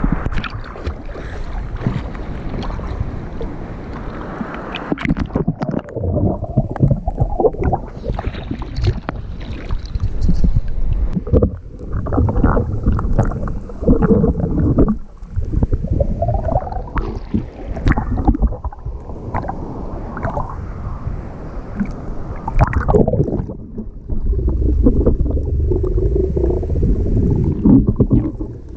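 Rough sea water splashing and sloshing right at the microphone, in irregular surges with gurgling, over a heavy low rumble of surf and wind. The rumble swells in the last few seconds.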